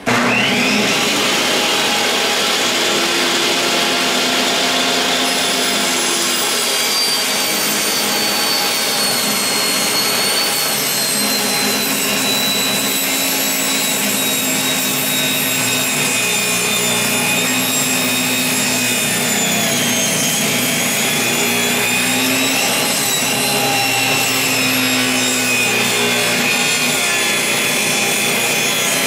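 Pro-Tech 10-inch benchtop table saw switched on, its motor whining up to speed within the first second, then running steadily as the blade rips through a board. The whine drifts slowly lower in pitch as the cut goes on.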